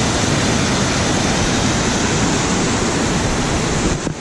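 Waterfall: a loud, steady rush of falling water that drops away suddenly near the end.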